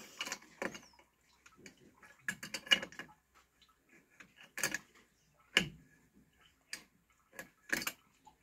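Metal spanner clicking and knocking against a chrome wall-mounted mixer tap and its fittings as the tap is tightened onto the wall: irregular sharp ticks and clanks.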